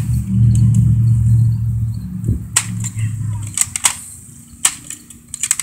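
Toy foam-dart blaster clicking several times as its trigger is worked, sharp single clicks spread through the second half. A low steady hum fades out about three and a half seconds in.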